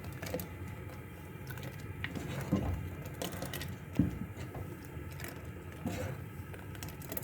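Scattered soft knocks and clicks of kitchen utensils against a pot, over a low steady hum.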